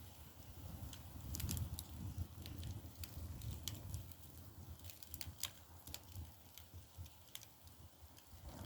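Dry split bamboo firewood burning in a Korean agungi firebox, crackling with irregular sharp pops over a steady low rumble of the fire.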